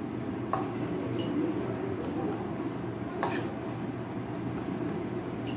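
Steady low background hum, with a few faint clicks of a spoon against bowls as thick poppy seed paste is scooped into curd.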